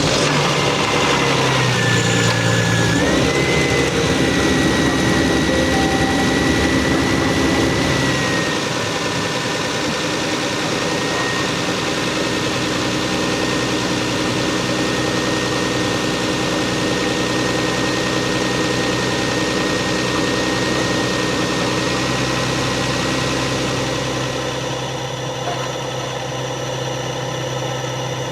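Stock Lexus GS300's 2JZ inline-six running just after starting: a higher idle for the first eight seconds or so, then settling to a lower, steady idle, with a thin high whine running over it.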